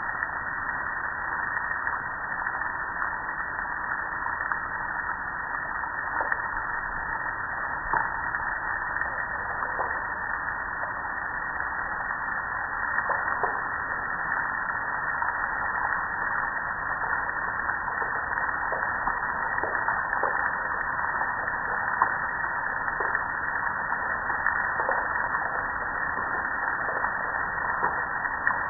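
Water spray hitting a metal gas grill, a steady hiss with scattered small taps.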